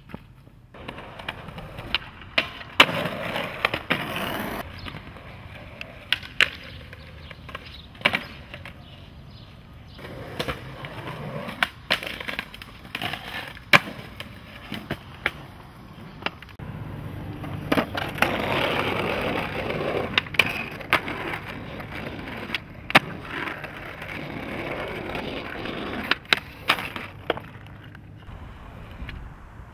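Skateboards rolling on concrete and stone paving, broken by many sharp clacks of tails popping and boards landing as tricks are done one after another.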